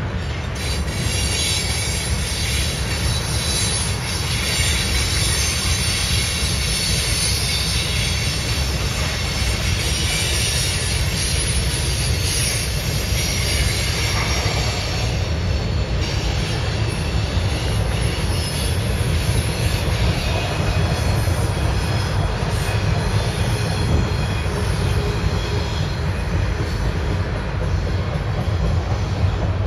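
CPKC freight train cars rolling past, a steady low rumble of wheels on rail with a high wheel squeal that comes and goes, strongest in the first half.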